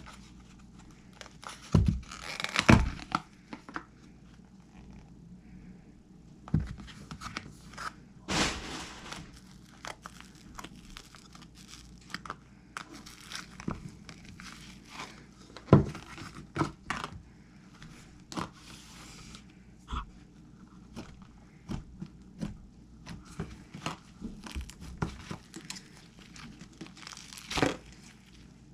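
Hands squeezing and stretching handmade slime, making irregular sharp pops with a few longer tearing, crackling stretches.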